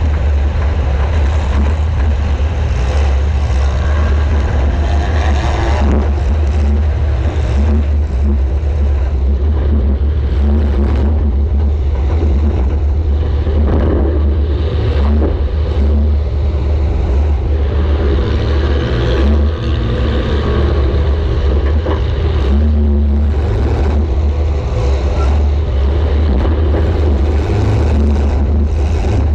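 Welded compact demolition derby car's engine running hard, a loud steady low drone heard from inside the car, with scattered knocks and rattles.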